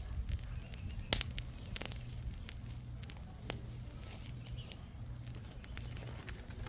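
Small wood campfire crackling, with sharp irregular pops, the loudest about a second in, over a steady low rumble.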